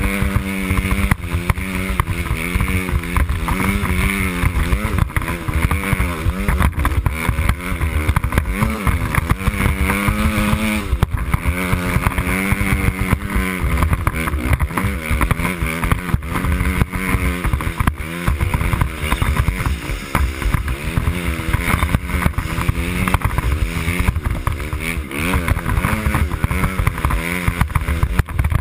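Dirt bike engine running under load, its pitch rising and falling over and over with the throttle.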